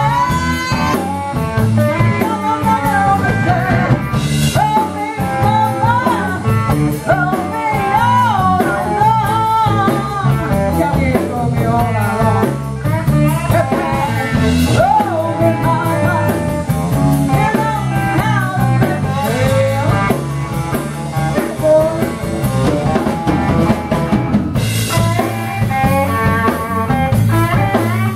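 Live blues and rock'n'roll band: a woman sings a strong, wailing vocal line into a microphone over electric guitar and drums.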